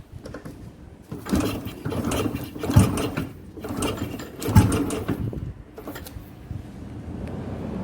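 Irregular mechanical clicks and knocks from metal parts being handled, with two louder thumps about three and four and a half seconds in.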